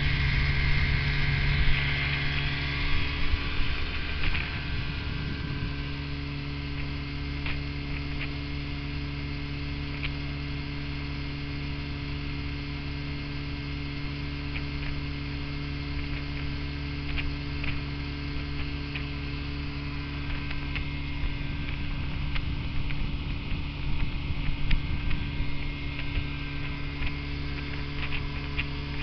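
Small outboard motor running at a steady cruising speed, a steady hum, with water rushing over the first few seconds.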